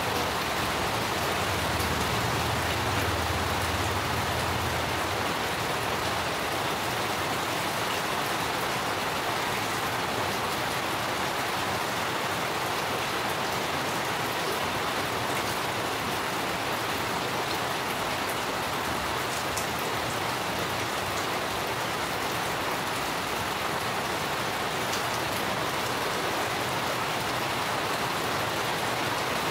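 Steady rain falling on garden plants and hard wet surfaces, an even hiss that does not let up, with a low rumble under it for the first few seconds.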